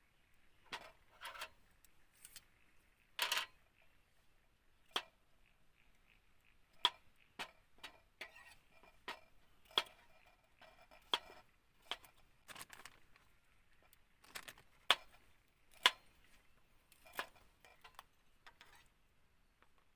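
Wood campfire crackling: irregular sharp pops, roughly one a second, some in quick pairs, over a faint quiet background.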